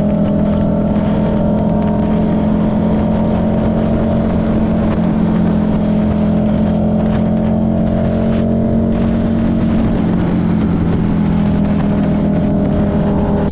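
Buell 1125CR's V-twin engine running at a steady cruise, holding an even note that eases slightly lower in pitch near the end.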